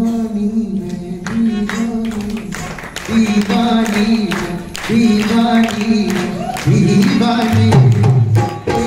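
Live Rajasthani folk music accompanying a dance: a voice singing in long held notes over drum strikes, the melody dropping to a lower register near the end.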